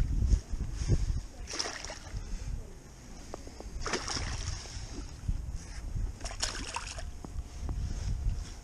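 A small hooked fish splashing and thrashing at the water's surface as it is drawn in by hand on the fly line, in three bursts about two seconds apart, over a low rumble of wind and handling on the microphone.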